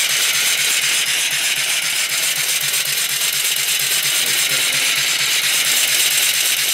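Small vertical reversing steam engine (2¾-inch bore, 3-inch stroke) running steadily on steam: a constant steam hiss over a quick, even mechanical beat.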